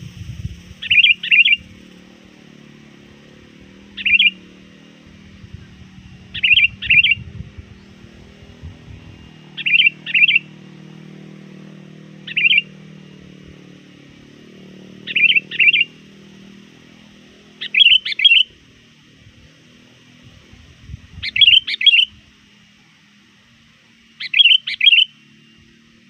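Sooty-headed bulbul (kutilang) calling to rivals. Its short phrase of two or three quick notes comes nine times, about every three seconds.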